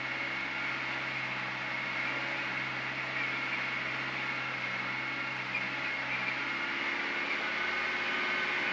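Isuzu NPS 75/155 truck's diesel engine running steadily at low speed, a low drone with a steady high whine over it, with tyre noise from the dirt track.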